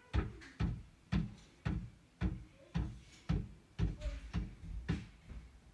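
A horse bumping repeatedly against the side of a parked Chevrolet SUV: dull knocks on the car body, about two a second.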